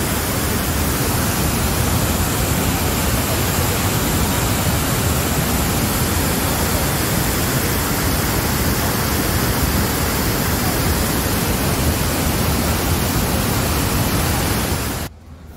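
Muddy floodwater pouring over a broken road edge and rushing along in a torrent, a loud steady noise that cuts off suddenly near the end.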